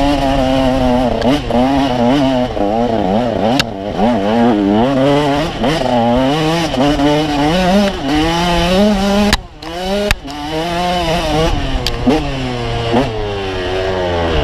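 KTM 150 two-stroke dirt bike engine being ridden hard, its pitch rising and falling constantly as the throttle is worked on and off. About nine and a half seconds in the sound briefly drops away, with a few sharp knocks around it.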